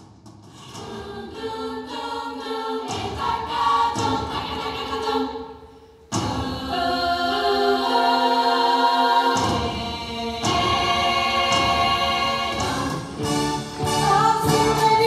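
Choir of many voices singing a song in harmony, fading in at the start. The singing drops away just before six seconds in and comes back in suddenly.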